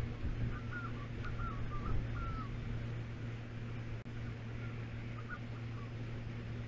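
A bird calling in two short runs of quick chirps over a steady low hum.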